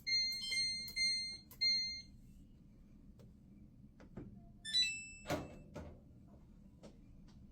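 Samsung washer control panel beeping as its newly fitted control board powers up: three beeps at the same pitch, then a short chime of several tones with a knock about five seconds in.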